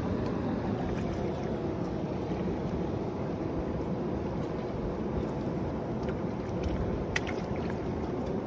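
Steady wind rumble on the microphone over river water lapping against rocks, with a couple of faint clicks about seven seconds in.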